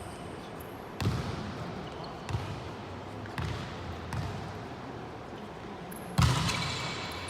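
Volleyball being hit during play: a series of sharp smacks of hands on the ball, about six in all, each with a short echo. The loudest comes about six seconds in.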